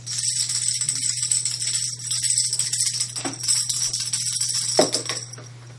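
Rustling and rattling of objects being handled and shifted on a cluttered tabletop: a busy, shaker-like hiss that stops about five seconds in.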